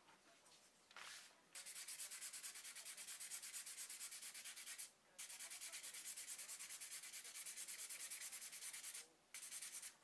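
Hand-sanding a small carved wooden piece with sandpaper: quick, even back-and-forth strokes at about six a second, in runs broken by two short pauses.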